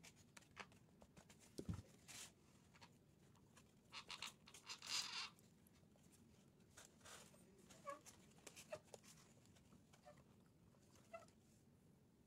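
Faint paper handling: pleated paper and a card cut-out rustling and crinkling as they are glued and pressed together, with scattered small clicks and a longer burst of rustling about four to five seconds in.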